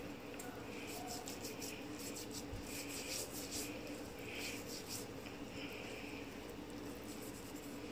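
Faint rubbing and scratching of wet hands working dry seasoning into the skin and scales of a whole parrot fish, in irregular soft strokes over a low steady hum.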